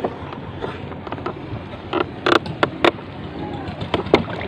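Sharp knocks and creaks from a small wooden canoe being handled, a cluster of them about two seconds in and more near the end, over a steady background hiss.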